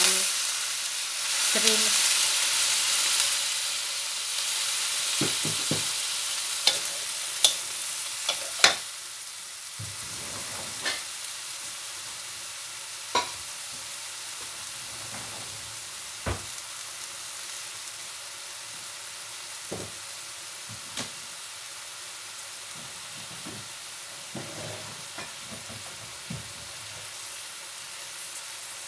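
Water poured into a hot steel wok of shrimp hisses loudly for the first few seconds, then settles into a steady sizzle that slowly fades, broken by occasional sharp clicks and pops.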